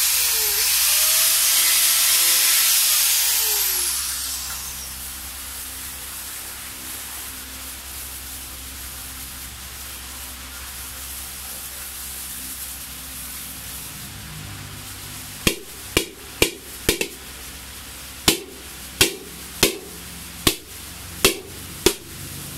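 Handheld grinder trimming the edge of a fibreglass helmet shell, its whine falling as it spins down about four seconds in. Past the middle, about ten sharp, hollow knocks as two fibreglass helmet shells are struck together.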